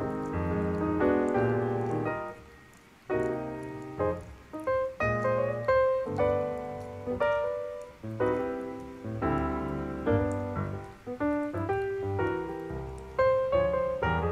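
Piano music: a melody over chords, with a short pause about two and a half seconds in.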